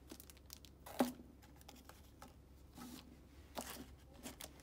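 Thin plastic bags around paper cups crinkling and rustling as a hand picks up and moves the cups, with light clicks and a sharp knock about a second in.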